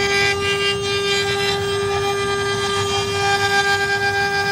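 Four 2.2 kW spindles of a four-head, four-rotary-axis CNC wood router running with a steady high whine while their bits carve turning wooden cylinders, a scratchy cutting noise over the whine.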